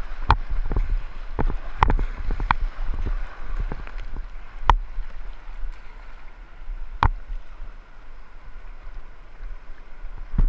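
Whitewater rushing and splashing around a kayak being paddled through a rapid, broken by several sharp knocks. The rush eases off in the second half as the water calms.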